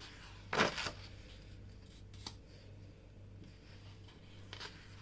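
A sheet of printed paper turned over by hand: a brief rustle just over half a second in, then a small tap about two seconds later and faint ticks near the end.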